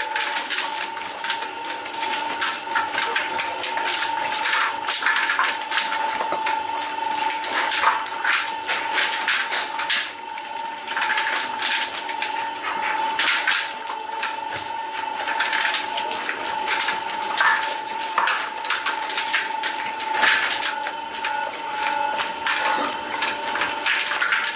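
Bakery work noise: a steady machine hum with a constant tone, under frequent irregular clatter and knocks.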